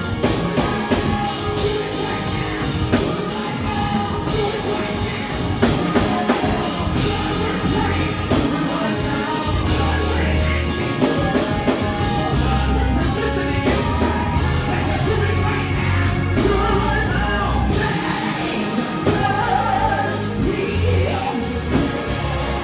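Live gospel praise music over a PA system: a band with heavy bass, and singers on microphones leading the congregation.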